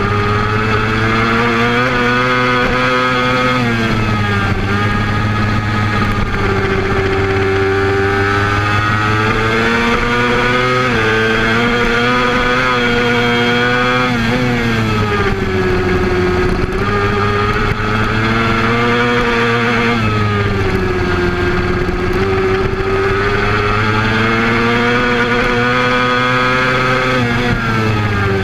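Honda race motorcycle's engine at race pace, filmed onboard. The pitch climbs for several seconds at a time as the bike accelerates, then drops away as the rider brakes and downshifts, several times over.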